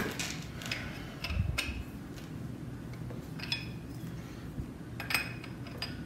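Steel hand tools and small metal parts clinking as they are picked up and set down: a wrench handled at the engine, with light metallic clinks in a few small groups, about a second and a half apart early on, then a pair a little past halfway and another pair near the end.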